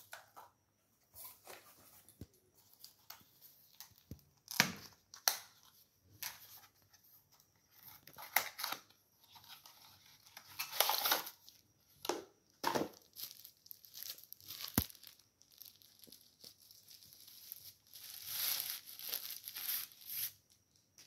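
Cardboard box and packaging being handled and pulled open by hand: irregular bursts of cardboard scraping, paper tearing and wrapping rustling, loudest about four seconds in, near the middle, and again towards the end.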